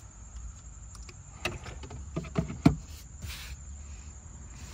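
Nalgene water bottle being set into a custom 3D-printed cup holder insert in a car's centre console: a light knock about a second and a half in, then a quick run of plastic knocks, the last the loudest, over a low steady hum.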